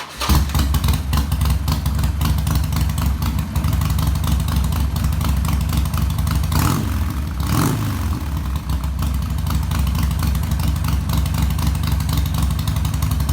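Harley-Davidson Sportster 1200's air-cooled V-twin firing up and running with the choke on, a cold start that tests the newly fitted choke cable. The engine is revved twice, briefly, about seven seconds in.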